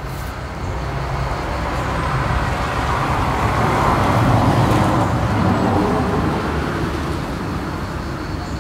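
A road vehicle passing by: a swell of road and tyre noise that builds to a peak about four seconds in and then fades away.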